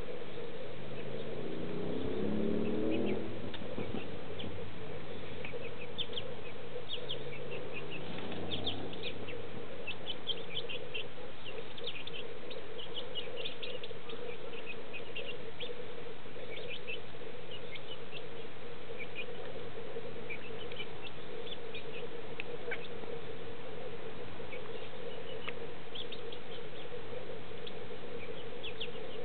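Young hens peeping: many short, high chirps, several a second, from about six seconds in. Under them runs a steady low hum, and a rising low drone sounds briefly near the start and again about eight seconds in.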